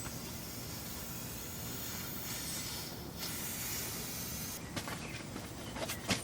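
A steady high hiss that changes sharply a few times, with several sharp clicks or knocks near the end.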